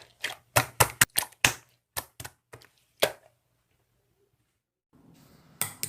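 Slime being pressed and played with by hand: a run of sharp, irregular sticky clicks and pops for about three seconds, then a pause and one more click near the end.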